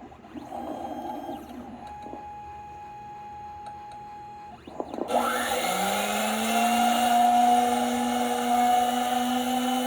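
Robotic key cutting machine: a steady motor whine for a couple of seconds, then about halfway through the cutter motor starts, rising in pitch as it comes up to speed and running on with a steady whine.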